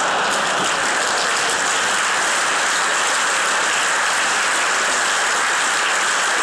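A large audience applauding: dense, steady clapping that sets in just before and keeps an even level.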